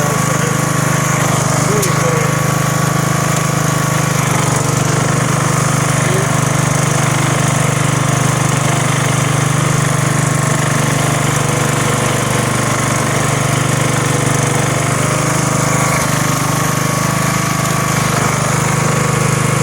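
Engine of a snow-clearing machine running steadily at an even pitch, a little louder from about four seconds in.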